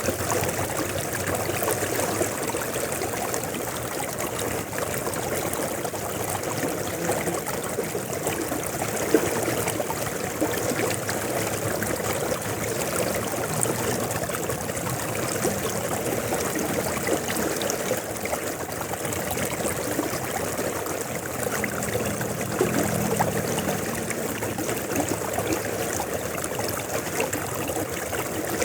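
River water flowing steadily, a continuous rushing and trickling over stones with no breaks.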